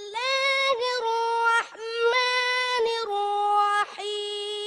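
A boy's high voice chanting Quranic recitation in the melodic style, long held notes with a wavering, ornamented pitch, in several phrases broken by short pauses.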